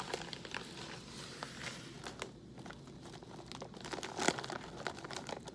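Metallised plastic snack bag of cheese puffs crinkling as it is handled and pulled open at the top, with irregular crackles and a sharper one about four seconds in.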